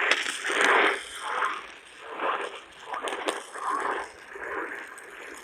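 Radio broadcast heard through crackling static, with a voice coming through only in muffled, unintelligible snatches.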